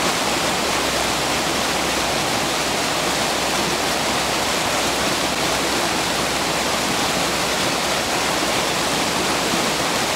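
Mountain river water running steadily, a constant rush with no breaks.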